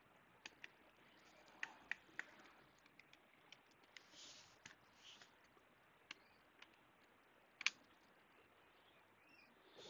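Scattered small clicks and taps from gloved hands handling an opened laptop's internal parts and a small screwdriver, with one sharper click about three-quarters of the way through and two brief soft rustles around the middle. Otherwise near silence.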